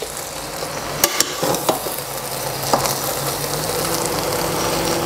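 A metal spoon stirring and turning chicken biryani rice in a stainless steel pot, with a few sharp clicks of the spoon against the pot. A steady sizzle from the hot pot runs underneath.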